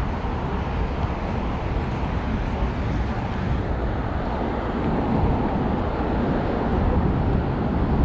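Steady low rumble and rushing noise of an ÖBB Cityjet (Siemens Desiro) electric regional train running, growing slightly louder in the second half.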